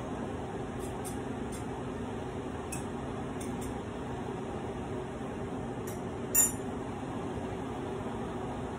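A few light clicks and one louder clink about six seconds in, a utensil knocking on cookware at the stove, over a steady hum.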